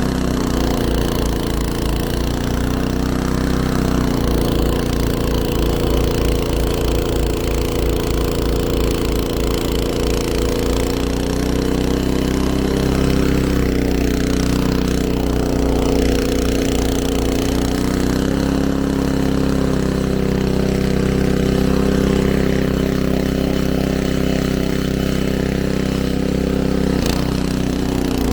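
Gas snowblower engine running steadily, its pitch shifting a few times as it works through the snow.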